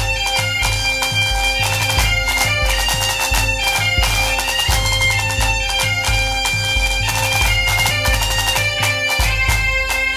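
Bagpipe music: a melody over a steady drone, with a regular low beat underneath.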